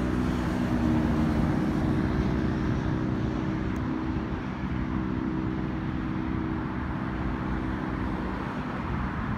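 Steady engine drone with a low, rough rumble, easing a little and fading near the end.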